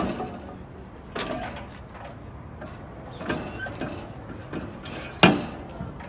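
Heavy steel brake drum and hub on a Mercedes-Benz truck's rear axle being worked off by hand: scattered metal clunks and scrapes, the loudest a sharp knock about five seconds in.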